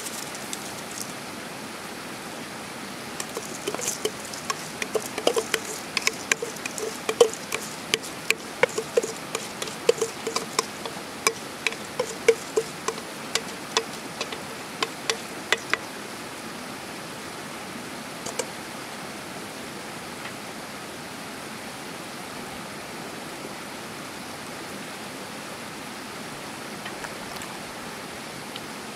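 A wooden spoon knocks and scrapes rice out of a stainless steel bowl over a pot of boiling water: many sharp taps over about twelve seconds, the bowl ringing briefly after each. The taps stop; a steady rushing hiss carries on underneath throughout.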